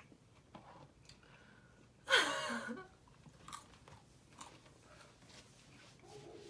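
Someone chewing McDonald's chicken nuggets, with faint scattered mouth clicks and crunches. About two seconds in there is a short, louder vocal sound.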